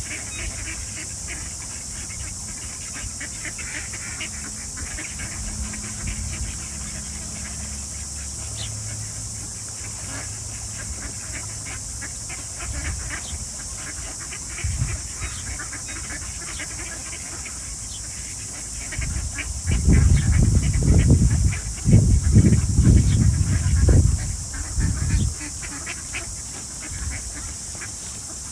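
A flock of ducks and geese calling, many short quacks and honks over a steady high hiss. From about twenty to twenty-five seconds in, loud low rumbles rise over the calls.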